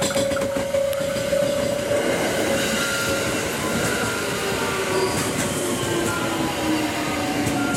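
521-series electric train pulling into a station: wheels rumbling and clicking over the rails, and the traction motors' whine sliding down in pitch as the train brakes to a stop. A steady ringing tone fades out in the first two seconds.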